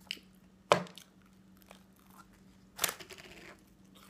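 Takeout food packaging being handled: two sharp crackles of paper and plastic, about a second in and again near three seconds, the second trailing into a short rustle, over a faint steady hum.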